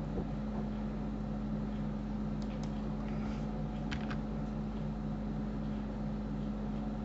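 Steady low electrical hum in the recording, with a few faint computer keyboard clicks about two and a half to four seconds in.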